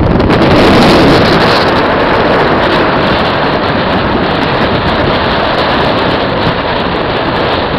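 Strong wind buffeting the camera's microphone, a loud, steady rush and rumble without any pitched sound.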